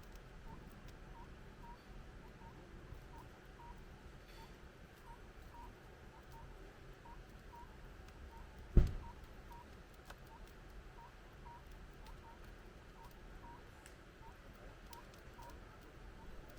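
A faint, short chirp repeats evenly, about twice a second. About nine seconds in there is one sharp thump, the loudest sound here, and a few faint ticks are scattered around it.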